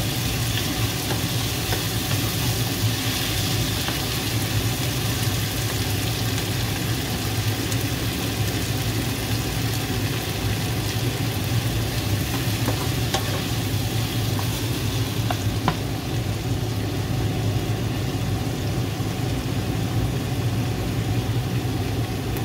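Sliced onions and tomatoes sizzling in hot oil in a frying pan, with a wooden spatula stirring and scraping the pan now and then. A steady low hum runs underneath.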